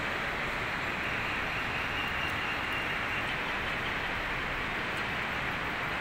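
Steady rushing noise with no distinct events.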